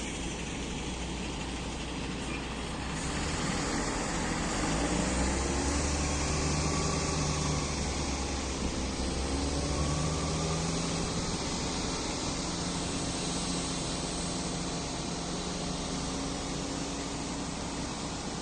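Caterpillar 140GC motor grader's diesel engine running, its pitch and loudness rising and falling with the revs between about four and eleven seconds in.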